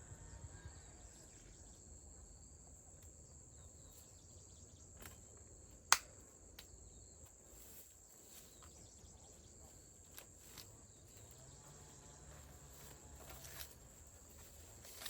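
Faint, steady high-pitched insect chirring, with scattered light clicks and one sharp click about six seconds in.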